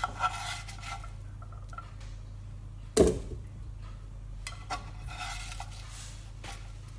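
Black kitchen spatula scraping and lifting roasted vegetable pieces off a baking tray into a stainless steel soup-maker jug. There is one sharp knock about three seconds in, with lighter clicks and scrapes around it.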